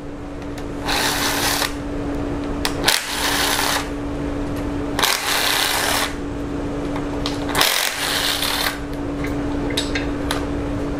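Cordless power driver with a 6 mm hex bit whirring steadily as it spins out the bolts on a 2.4 MultiAir cylinder head's valve-actuator housing, with about four louder surges, each about a second long and two to two and a half seconds apart.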